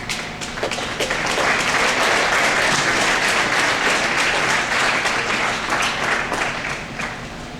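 An audience applauding, the clapping swelling about a second in and dying away to scattered claps near the end.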